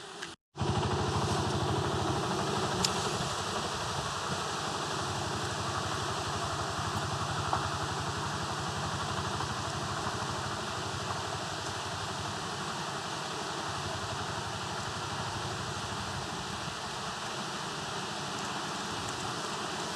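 An engine running steadily, with a dense rushing noise and fast low pulsing. It starts abruptly about half a second in.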